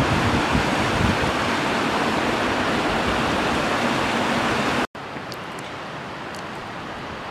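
Fast mountain river rushing over rocks, a loud steady roar of water. It cuts off abruptly about five seconds in, giving way to a much fainter steady rush.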